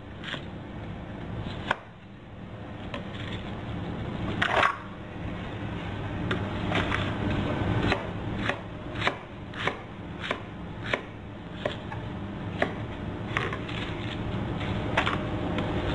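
Knife chopping cabbage on a cutting board: sharp separate knocks, a few scattered at first, then a steady run of about one every half second to second, over steady low background noise.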